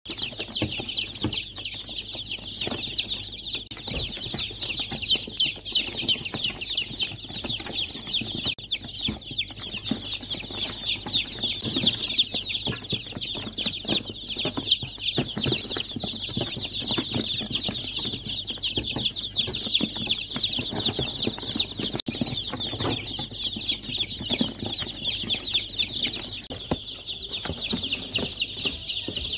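A large brood of young chicks peeping all together, many short high-pitched cheeps overlapping into one continuous chorus.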